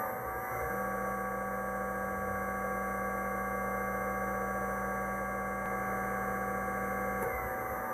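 Treadmill induction motor with freshly replaced bearings, run from a variable-frequency drive. It finishes speeding up about a second in, then holds a steady hum and whine. Near the end it starts to wind down as it is switched off. It sounds so much better with the new bearings in.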